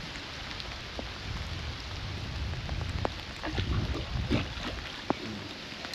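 Steady outdoor hiss with a low, uneven rumble of wind on the microphone and a few scattered light ticks.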